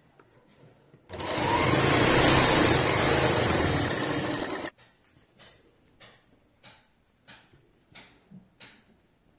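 Sewing machine stitching through cotton fabric, starting about a second in, running steadily for about three and a half seconds, then stopping abruptly. Afterwards come several light clicks, one every half second to second.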